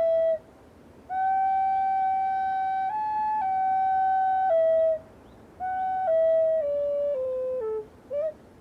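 A flute playing a slow melody of long held notes in phrases with short breaks between them, the last phrase stepping down through shorter notes.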